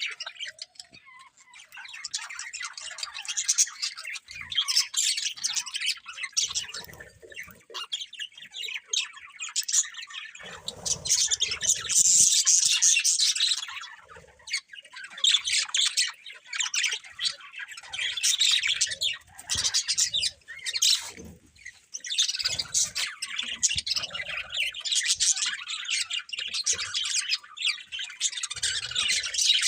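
Budgies chirping and chattering almost without pause in fast, high twittering with squawks mixed in, loudest about twelve seconds in, with brief lulls.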